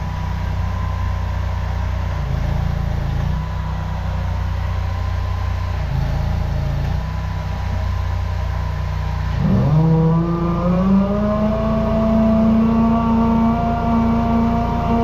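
High-pressure drain jetter's engine running at a steady speed, then revving up about two-thirds of the way through and holding at the higher speed as the jet is put back to work cutting roots in the pipe.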